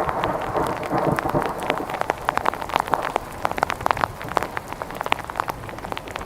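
Thunderstorm rain falling, with many separate heavy drops striking a hard surface close to the microphone.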